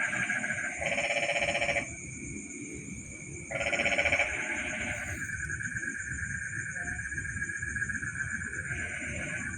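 Night-time animal chorus: bouts of fast pulsing trill calls about a second long, repeated several times, over a steady high-pitched insect buzz.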